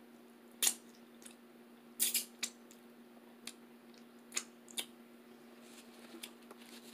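Wet mouth smacks as fingers are sucked and licked clean while eating, about seven short sharp smacks scattered across several seconds, the loudest about two seconds in, over a faint steady hum.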